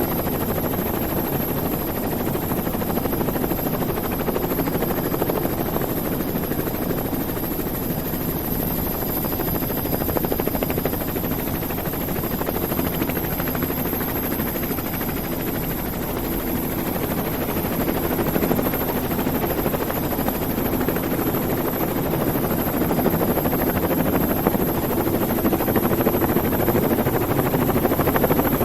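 Helicopter running steadily with a fast, even rotor chop, growing slightly louder over the last third.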